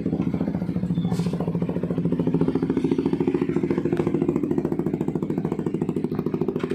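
CFMoto 300SR's single-cylinder engine idling steadily through an Akrapovic full exhaust system, with an even, fast-pulsing exhaust note.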